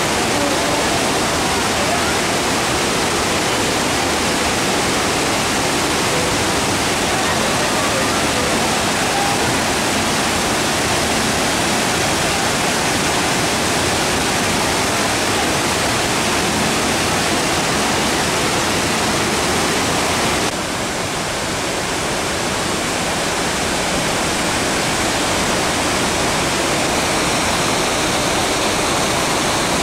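Waterfall cascading over rocks: a loud, steady rush of water. About twenty seconds in it drops a little and turns duller, then slowly builds back up.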